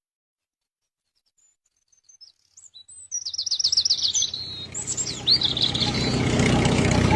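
After about two seconds of silence, a bird sings a quick run of high chirping trills. Beneath it a vehicle engine comes up as a steady low drone and grows louder toward the end, drowning the bird out.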